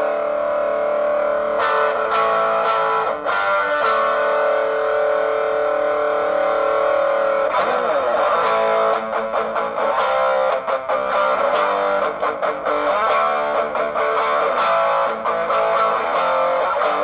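Electric guitar played through a Joyo British Sound overdrive pedal into a small Marshall amp. A few chords are struck and left to ring, then from about halfway the strumming turns faster and busier.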